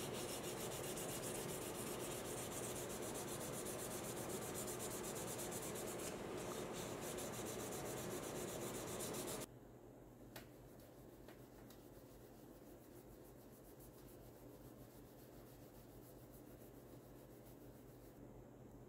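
Hand rubbing a resin faux-ivory revolver grip with a cloth to polish it to a gloss. The rubbing is loud and brisk at first, then drops suddenly to a much quieter rubbing with a few faint clicks about halfway through.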